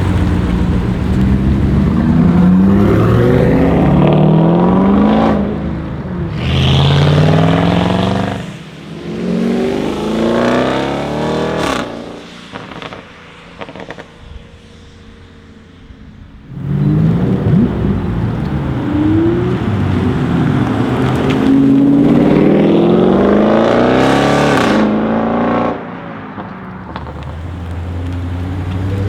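Audi RS6 C7's twin-turbo V8, breathing through an Akrapovic exhaust, accelerating hard. The revs climb and fall back at each upshift, over two runs with a quieter lull between them. A sharp exhaust crack sounds as the first run ends.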